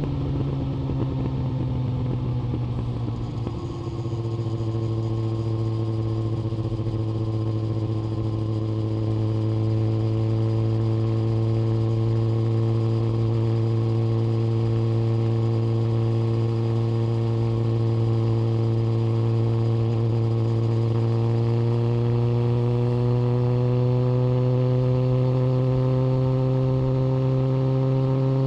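Yamaha FZ1 Fazer's inline-four engine running under way, with a brief dip in revs about three seconds in, then its note climbing slowly and steadily as the bike gains speed.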